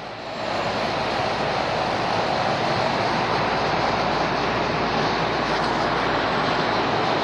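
A steady rushing drone that swells up in the first half-second and then holds even.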